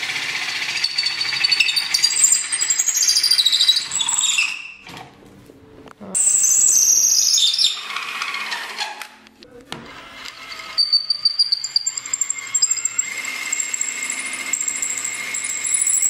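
Cordless drill spinning a tapered tenon cutter on the end of a wooden chair leg, the blade squealing as it shaves the tenon, the high whine sliding down in pitch. The cutting stops briefly twice, about 5 and 9 seconds in.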